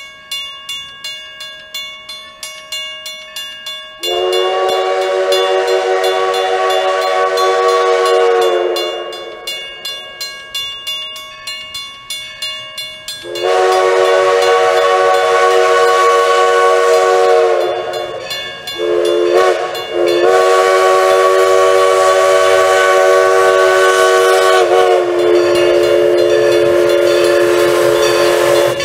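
Grade-crossing bell ringing steadily in pulses, then a steam locomotive's chime whistle blowing the grade-crossing signal: two long blasts, a short one, and a final long one. The whistle is far louder than the bell and drowns it out.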